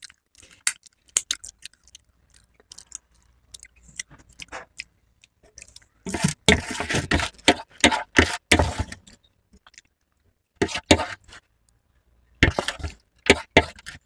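Metal cutlery clinking and scraping against stainless steel plates: scattered sharp clinks, a dense run of scraping about six seconds in, and a few more sharp clinks near the end.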